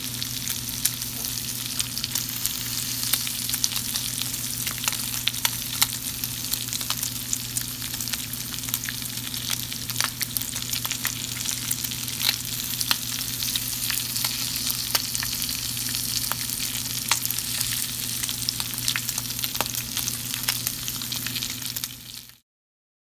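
Bacon frying in a pan: a steady sizzle of hot fat with frequent crackles and pops. It cuts off suddenly near the end.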